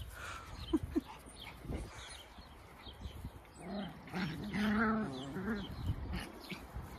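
Eight-week-old micro mini sheepadoodle puppies play-wrestling, one of them giving a drawn-out, wavering vocal sound of about two seconds near the middle.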